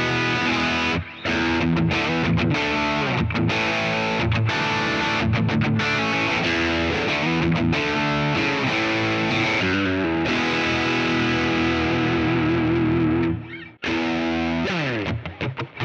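Electric guitar played through a Kemper profile of a Fullerton Pro Sound amp's cascading-gain second channel, a distorted tone of sustained chords and lead notes. Late on one note is held with wide vibrato. After a brief gap near the end, a note slides down in pitch.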